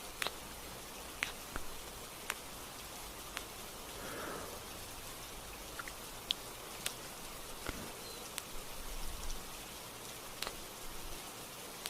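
Gentle rain: a steady hiss with single drops ticking at irregular intervals.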